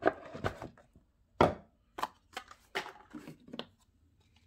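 A run of sharp plastic clicks and knocks as a boxed speedcube and its packaging are handled and opened, bunched in the first three and a half seconds and then stopping.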